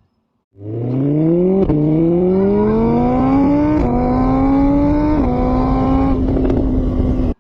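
Engine accelerating hard through the gears: its pitch climbs, drops at each of three gear changes, then holds steady at speed before cutting off abruptly.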